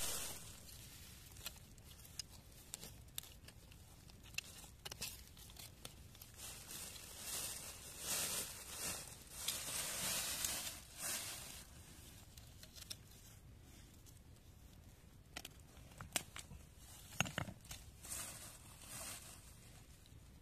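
Wild bitter lettuce being cut with a knife and pulled by hand from stony ground: leaves rustling, stems tearing and small clicks of stones. The rustling grows louder for a few seconds about eight to eleven seconds in.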